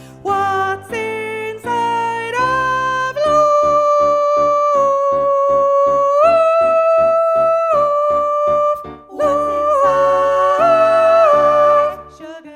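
Choral arrangement accompaniment track: long held, slightly wavering melody notes over steadily repeated accompaniment chords, the music dying away near the end.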